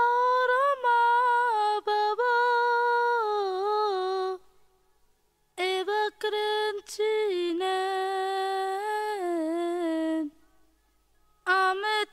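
Soundtrack music: a single high voice humming a slow, wordless melody in long phrases, gliding between notes, with a pause of about a second after each phrase.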